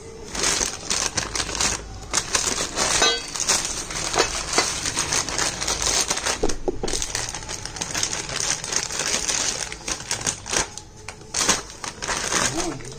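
Thin plastic parts bag crinkling and rustling as it is handled and opened, in dense crackly bursts with brief pauses, plus a light metallic clink or two.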